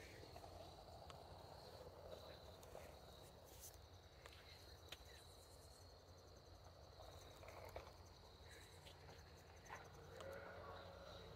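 Near silence outdoors: a faint, steady insect trill, typical of crickets, with a few small clicks.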